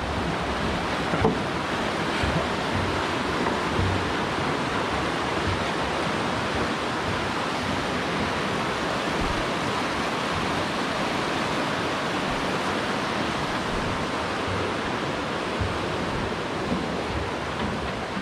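Steady rushing of fast-flowing water, a creek running high with snowmelt, with a few faint low thumps.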